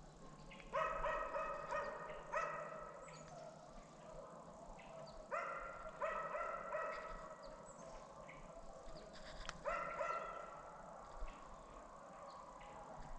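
Deer-hunting hounds barking, the barks coming in three bunches of several close together, near the start, in the middle and near the end.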